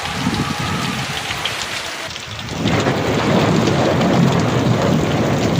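Heavy rain falling in a thunderstorm, with a low rumble of thunder that swells up about halfway through and keeps rolling.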